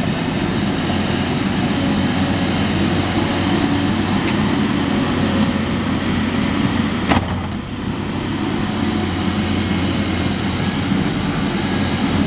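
Caterpillar 320D excavator's diesel engine running steadily while the machine digs and lifts a bucket of dirt, with one sharp knock about seven seconds in.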